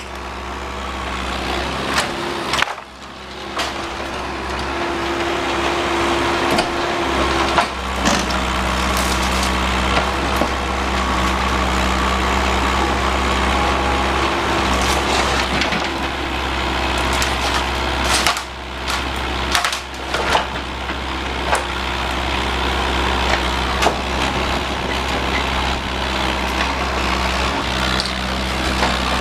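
Bobcat 331 compact excavator running under load as it pulls down wood-framed walls, with wood cracking and splintering and scattered knocks and crashes over the engine.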